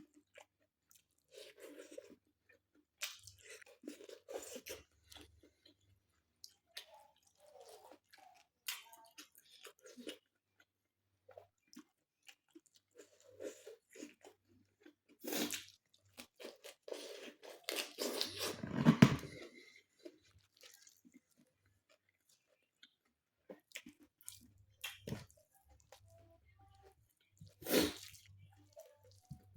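A person chewing and biting food close to the microphone, with irregular crunches and mouth clicks. The chewing is busiest and loudest a little past halfway, and there is one sharp crunch near the end.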